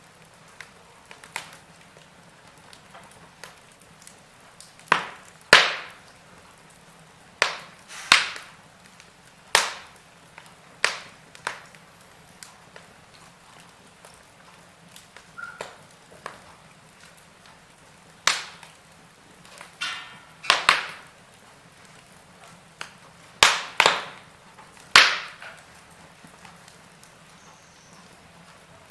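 Wood fire crackling in a fireplace: irregular sharp pops and cracks, some in quick pairs, over a quiet steady background.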